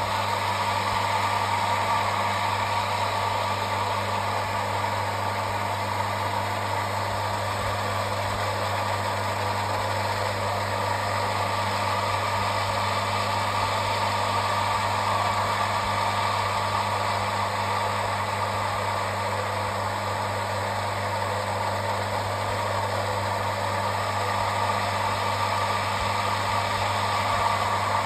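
Metabo water pumping station's electric pump running steadily, a constant motor hum and whir.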